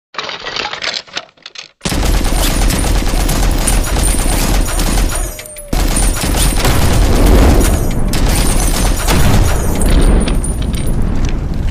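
Machine-gun sound effect: a few quieter clicks, then rapid continuous automatic fire starting about two seconds in, with a short break about five seconds in.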